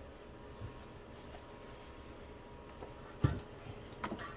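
Quiet handling of rolled cloth towels being packed into a plastic under-sink drawer, with a soft thump about three seconds in and a lighter knock near the end.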